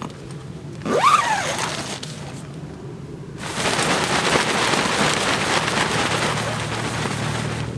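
A nylon dome tent's door zipped shut in one quick pull about a second in, its pitch rising then falling. From about three and a half seconds in, a steady rustling of the tent fabric follows as people move inside.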